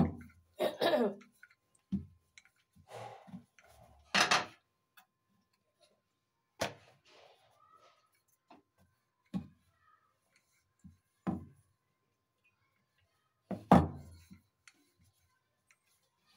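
Wooden rolling pin rolling out a thin sheet of dough on a wooden board, with a short knock of wood on wood every two or three seconds.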